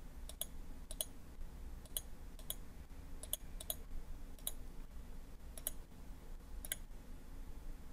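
Computer mouse button clicking about nine times at irregular intervals, each a short sharp click, over a faint low hum.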